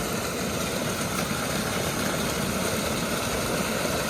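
Storm floodwater rushing steadily through a culvert under a driveway, a constant heavy flow.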